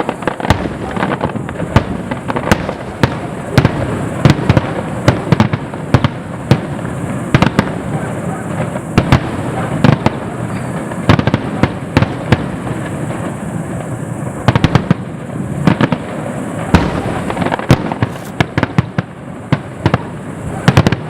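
Fireworks display: a dense, irregular barrage of sharp bangs, several a second, over a continuous crackle.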